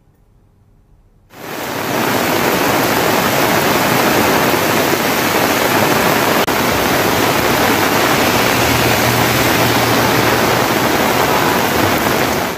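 Heavy rain pouring steadily onto a street, a loud even hiss. It starts suddenly about a second in and cuts off abruptly near the end.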